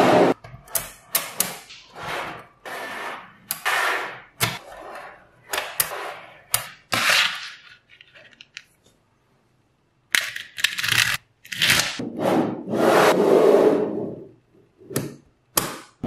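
Small magnetic balls clicking, clattering and scraping against each other as hands press and shape sheets of them, in irregular bursts with a pause of about two seconds midway.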